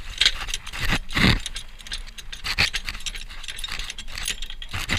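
Car jack being fitted under the lift point: irregular metal clicking, rattling and scraping, with a louder knock a little over a second in.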